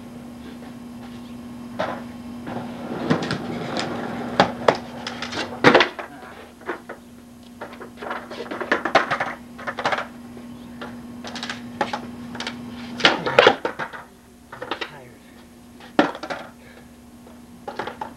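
Skateboard on concrete: wheels rolling with a series of sharp clacks and slaps as the deck's tail pops and the board lands, about a dozen hits, the loudest about six seconds in and again about thirteen seconds in. A steady low hum runs underneath through most of it.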